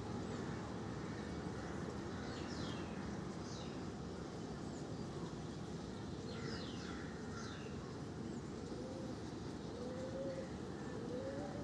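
Birds calling over a steady background rumble: a few high, quickly falling chirps, then in the last few seconds a series of low rising-and-falling calls repeated about once a second.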